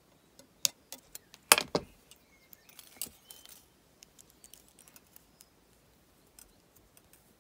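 Copper craft wires and steel pliers clicking and clinking as they are handled, a scatter of sharp ticks with the loudest click about one and a half seconds in and only faint ticks in the second half.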